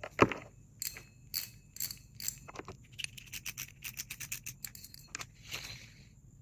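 Small metal parts of a fishing reel clicking and tapping as it is handled during a repair, with a sharp knock just after the start and a quick run of about six clicks a second in the middle.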